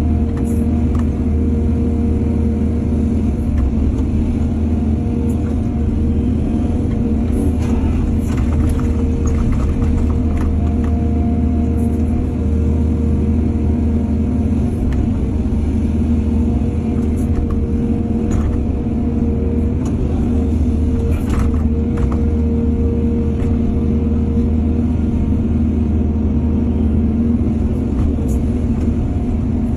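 Heavy excavator engine running steadily under load, with a few short sharp clanks scattered through it.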